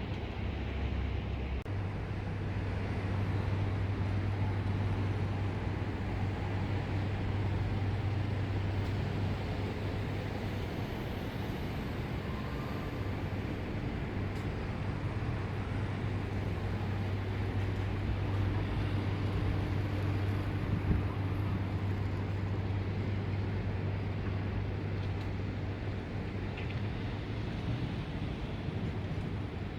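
Shinkansen bullet train at the station platform: a steady low hum over rumbling noise that holds level throughout.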